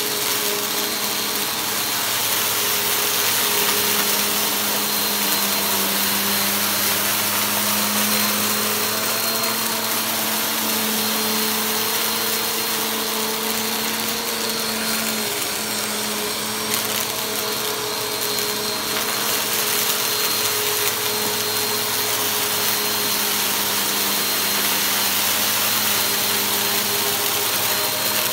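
Corded bagless upright vacuum cleaner running steadily on carpet, its motor hum shifting slightly in pitch as the head moves, with a very light crunch and a few faint ticks of fine dirt being sucked up.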